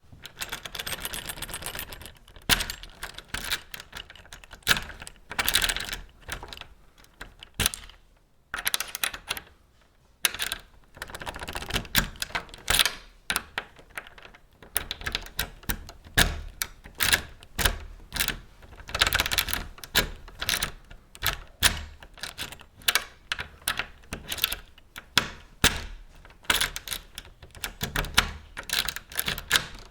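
A key being put into a door lock and worked over and over: clusters of sharp metallic clicks and rattles with short pauses between them, and a longer quiet gap about a third of the way in.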